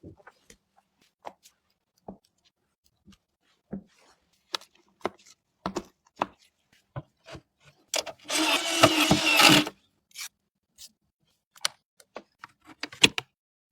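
Light clicks and taps of computer parts being handled and fitted together, with a small motor whirring for about two seconds in the middle.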